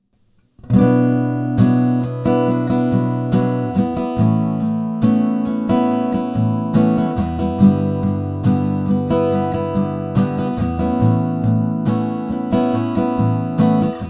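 Recorded acoustic guitar playing chords and picked notes, its under-saddle pickup signal shaped by an Audio Sprockets ToneDexter impulse-response preamp and recorded straight in with no further processing. The playing starts under a second in after silence and stops at the end, and it comes across close to a miked acoustic guitar.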